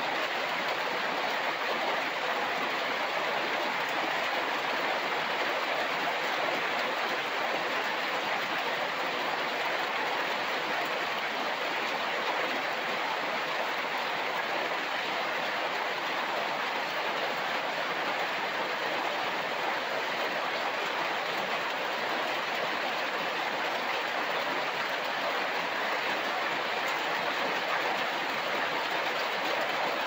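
Steady rain falling on leaves, an even hiss.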